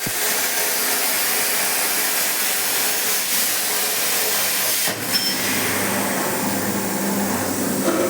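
Air plasma torch on a CNC gantry plasma cutter cutting, a loud steady hiss. About five seconds in there is a brief click and the hiss eases a little, with a steady low hum coming in under it.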